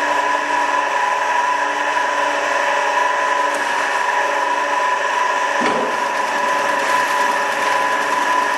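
Amada HA250W hydraulic horizontal band saw running in its automatic cycle, its blade drive and hydraulics giving a steady whine with several held tones while the vise feeds the stock forward. The machine is running with its cover off, so it sounds noisier than usual. A short knock comes about five and a half seconds in, as a lower tone drops out.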